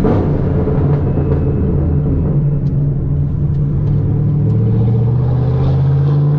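Camaro SS V8 engine running steadily with a deep, even note, its pitch rising slightly over the last couple of seconds.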